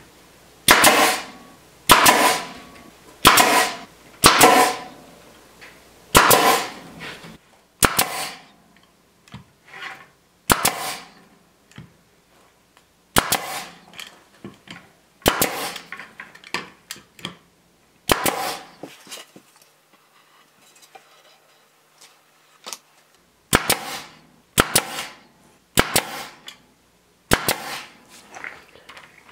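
Pneumatic stapler firing staples into the mitered pine joints of a wooden frame: a string of sharp, loud cracks, one shot at a time, spaced irregularly a second or more apart, with a pause of a few seconds midway and a quick run of shots near the end.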